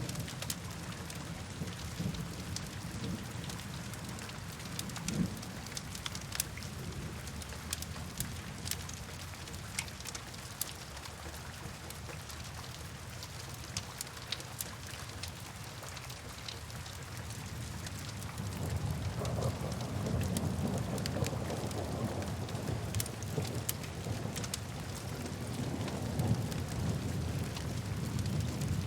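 Steady rain ambience with scattered sharp drop ticks. A low rumble swells about two-thirds of the way through and stays to the end.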